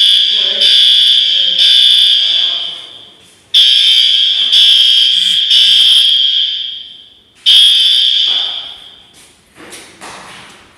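Fire alarm horns sounding a temporal-three evacuation pattern: loud, high tone blasts about a second apart in threes, each group restarting about every four seconds and ringing on in the room between blasts. After a single blast about seven and a half seconds in the horns stop, and a few faint knocks follow near the end.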